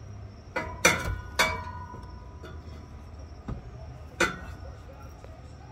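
Steel exhaust pipes of a Mustang GT axle-back clinking as the section is worked into place by hand: a few sharp metallic knocks with a short ring, three within the first second and a half and one more a little past four seconds in.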